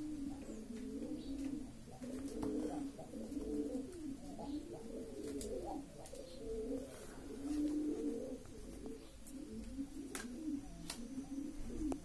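Pigeons cooing, several low warbling coos overlapping without a break, with a few light taps.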